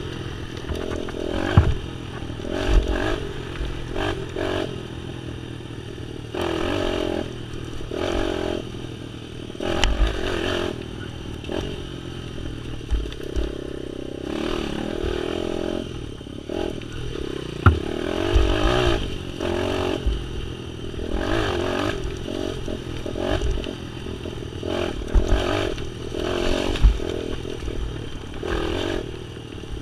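Small off-road vehicle engine running over rough ground, its revs swelling and easing in short bursts of throttle. Clattering and scraping of the machine jolting over rocks, with a few sharp knocks.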